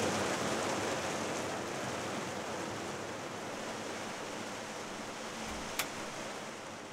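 Steady hiss of light rain, slowly fading, with one sharp click near the end.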